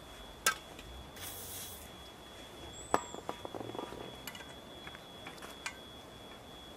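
Sharp metallic clicks and a run of small clinks and rattles as a spanner works the heated exhaust manifold nuts on a Volvo B200E cylinder head, with a brief hiss about a second in. A bird chirps faintly.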